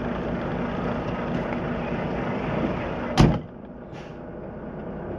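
Semi-truck's diesel engine idling, heard plainly through the open cab door, until the driver's door slams shut about three seconds in, after which the engine is muffled.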